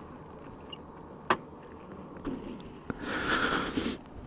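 Handling noises from a rider getting off a stopped motorcycle with its engine off: a sharp click about a second in, a smaller click near three seconds, then a short hissing rustle lasting about a second.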